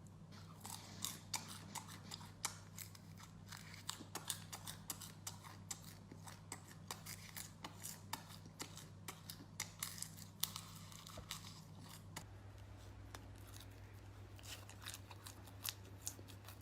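Faint, close chewing of crisp deep-fried insects: a steady run of small crackling crunches, a few each second, over a steady low electrical hum.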